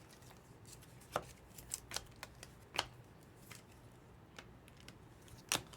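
Trading cards and packs being handled at a table: a few scattered short clicks and snaps, one louder snap near the end, over faint room hiss.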